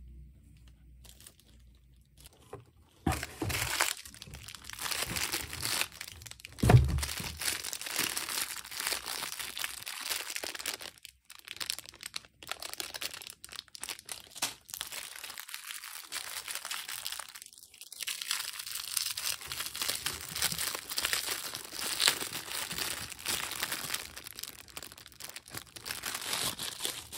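Clear plastic packaging crinkling and rustling as it is handled and unwrapped, starting about three seconds in and going on in irregular bursts. A single loud thump comes about seven seconds in.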